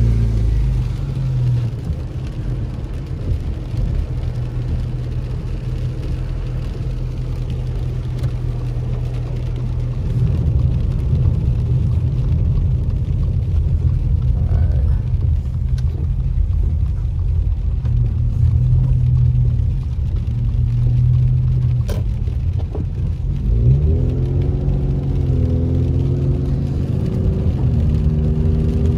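Steady low rumble of a car's engine and tyres on wet pavement, heard from inside the cabin, with a faint sliding pitched sound near the end.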